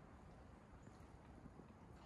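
Near silence: faint outdoor forest ambience with a few soft, irregular ticks.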